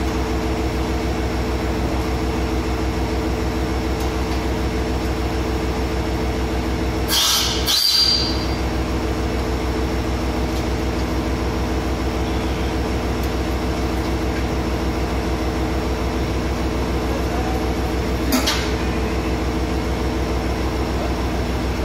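H100 diesel-electric railcars idling close by with a steady engine drone while two cars are coupled. A short double hiss comes about a third of the way in and a single shorter one later.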